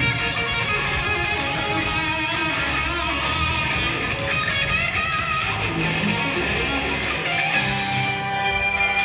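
Live rock band playing: electric guitar and bass guitar over a steady beat, loud and continuous.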